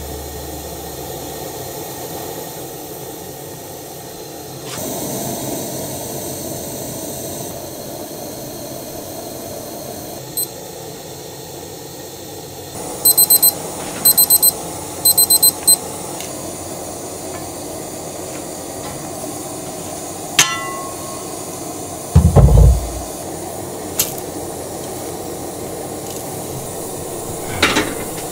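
Digital kitchen timer beeping in four quick bursts of short high beeps as its buttons are pressed, over the steady hiss of a portable gas burner on high flame. A few sharp clicks and one heavy thump come later, about 22 seconds in.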